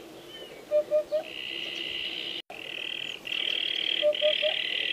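Eurasian hoopoe singing its soft, low 'oop-oop-oop'. It gives two bursts of three quick notes, one about a second in and one near the end. A steady high buzzing runs underneath, and the sound drops out for an instant about halfway.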